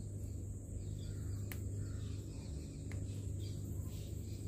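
Plastic toy-gun ring caps being snapped apart by hand: two faint small clicks about a second and a half apart, over a steady low hum and a steady high-pitched tone.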